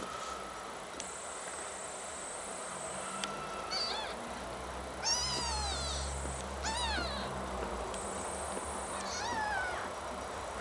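Two-day-old kittens mewing while nursing: about six short, high-pitched cries, each rising then falling in pitch, a cluster of them in the middle and more near the end.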